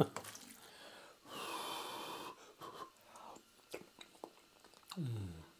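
A person's long breath, about a second, while tasting hot stew from a spoon, then a low 'mmm' falling in pitch near the end.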